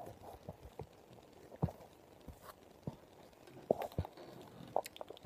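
Quiet handling noise: scattered soft taps and rustles as fingers brush and knock against the recording device close to its microphone, a little louder near the end.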